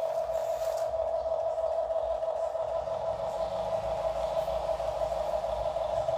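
Steady high-pitched whine of the small electric motors in radio-controlled toy excavators working their arms and buckets, with a low rumble underneath.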